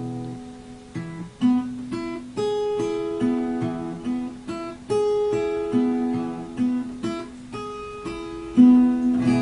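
Capoed steel-string acoustic guitar played solo without singing, a picked melody of single notes and chords over sustained bass notes, about two notes a second, each ringing on into the next.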